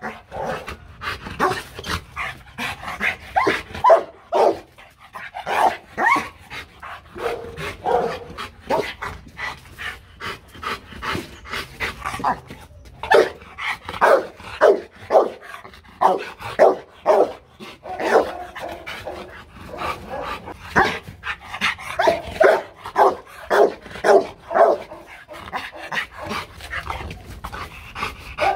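Rottweiler barking over and over, about two loud barks a second, with a couple of short pauses: warning barks at the person in front of it.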